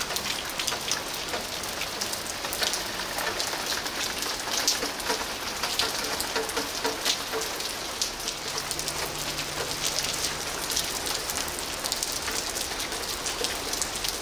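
Steady rain falling on pavement, a continuous hiss sprinkled with many separate drops ticking.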